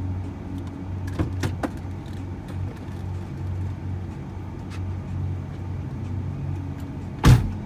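Shuttle van's engine running with a steady low hum, a few sharp clicks early on, and one loud thump near the end.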